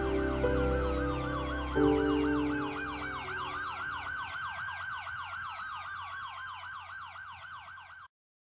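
Soundtrack music: held low synth chords, struck again about two seconds in and then fading away, under a fast siren-like warble repeating about five or six times a second, with slow sliding tones. It all stops abruptly near the end.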